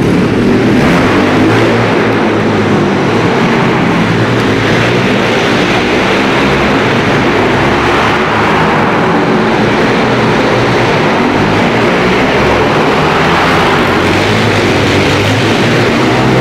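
Pit bike engine running hard, its note stepping up and down with the throttle over a dense, steady rush of noise.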